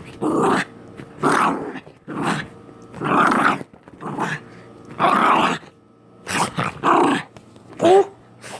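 Pet dog growling in play, in a string of short rough bursts with brief gaps between them, and a short higher-pitched cry near the end.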